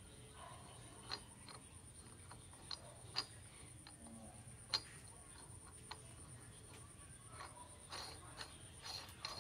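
Sparse light metallic clicks and taps from steel lathe-spindle parts being handled as a slotted lock nut is set on the spindle's threaded end. The sharpest click comes about five seconds in, and a few quick ones come near the end.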